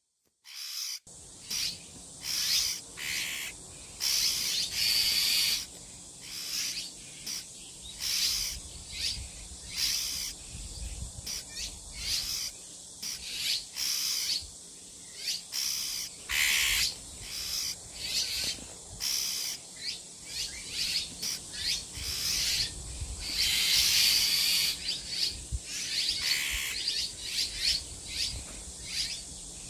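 Bull-headed shrikes calling over and over in short, harsh, hissing bursts at an irregular pace. The uploader calls this an unusual call for the species and takes it for a parent bird guarding its nestlings.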